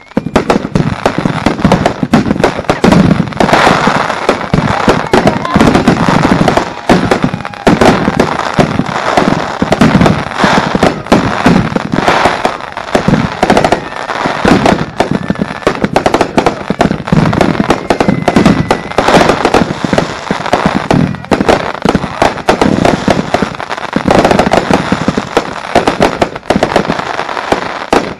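Consumer aerial fireworks firing in a dense, unbroken barrage of bangs as shells launch and burst overhead, many reports a second.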